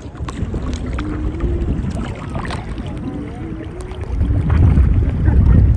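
Shallow seawater sloshing and splashing close to the microphone around people wading with a stingray, with scattered small splash clicks. A low rumble grows louder about four seconds in.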